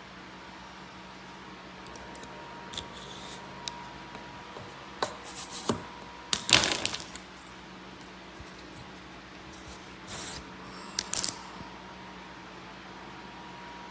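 Kitchen knives being handled: scattered clicks and scraping rubs of metal and sheath, the loudest burst about six and a half seconds in, over a steady background hum.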